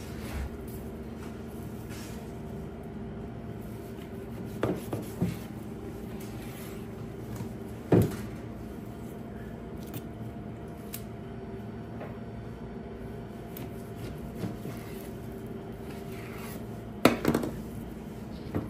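A few knocks of a butcher's knife and pieces of trimmed beef against a cutting board, loudest about eight seconds in and again near the end, over a steady low hum.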